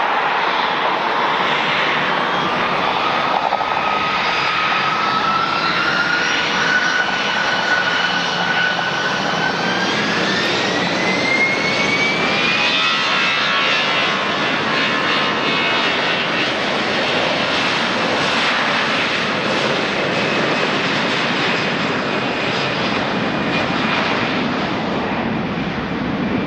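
Jet airliner's engines spooling up: a whine climbs steadily in pitch for about thirteen seconds over a loud steady roar, then the roar carries on at full power.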